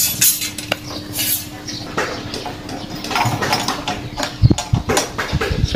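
Loose metal parts of a disassembled brush cutter clinking and knocking against each other and the concrete floor as they are picked up and handled. A few heavier knocks come after about four seconds, over a faint steady hum.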